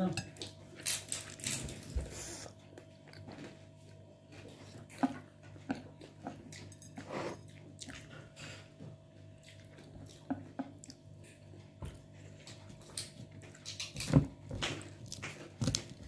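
A person chewing a mouthful of a homemade roll close to the microphone: irregular wet smacks and small crunches, a few louder ones now and then, over a faint steady hum.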